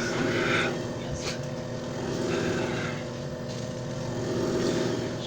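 JFJ Easy Pro disc repair machine running mid-cycle: a steady motor hum, with a faint voice now and then.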